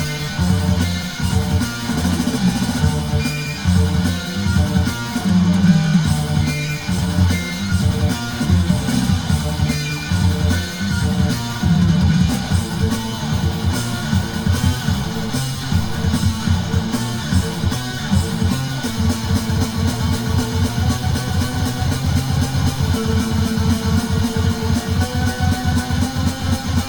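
Background music: a guitar-driven track with electric guitar and a steady bass line, cutting off at the end.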